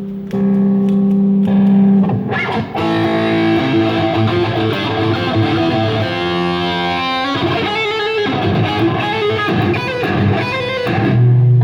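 Electric guitar playing: one note held for about two seconds, then a run of changing notes and chords.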